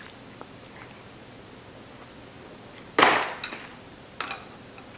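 A bowl of ramen set down on a granite countertop: one sharp knock about three seconds in, followed by a couple of lighter clicks.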